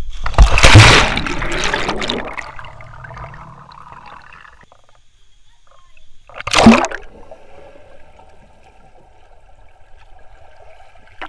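Two people jumping feet-first into a swimming pool: a big splash about half a second in, with the water churning and fading over the next couple of seconds, then a second sharp splash about six and a half seconds in. After the second splash the sound is muffled, heard from underwater.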